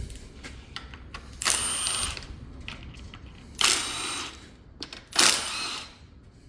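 Power tool whirring in three short bursts, each under a second, as it runs out the valve cover bolts on a Chevy Cruze 1.4 turbo engine.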